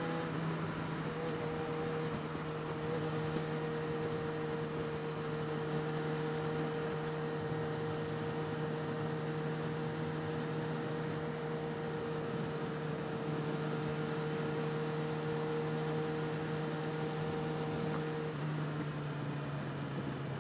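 Yamaha XJ6's inline-four engine humming at a steady pitch while cruising, over a steady hiss. Near the end the pitch drops in two steps as the bike slows.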